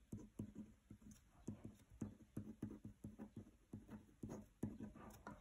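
Faint handwriting with a pen on paper: an irregular run of short scratches and taps, several a second.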